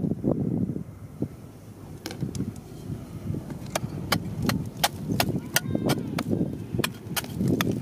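Steel digging bar with a chisel tip striking crumbly rock: a run of sharp clinks about three a second, starting about two seconds in. Low rustling and scraping of handled rock and dirt at the start and near the end.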